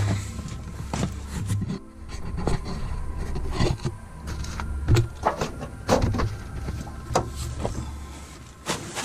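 Irregular knocks and bumps from things being handled and set down beside an oil drain pan, over a steady low rumble.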